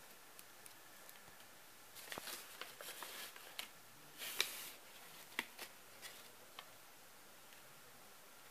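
Quiet room with faint rustling and a scatter of light clicks from about two seconds in, the loudest a short hissing rustle a little past the middle, dying away before the end.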